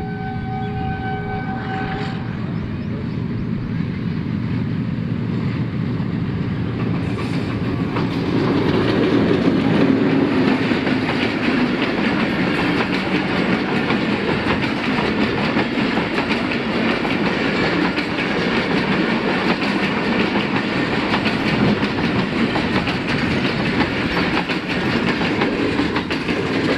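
Pakistan Railways HBU-20 diesel locomotive's horn sounding a chord that stops about two seconds in, then the locomotive passing close by with its engine loudest around ten seconds in, followed by a long rake of passenger coaches rolling past with the clickety-clack of wheels over rail joints.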